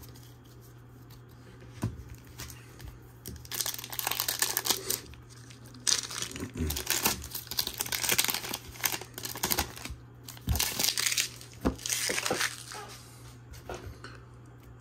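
A plastic trading-card booster pack wrapper being torn open and crinkled by hand, in a series of irregular crackling bursts that start a few seconds in.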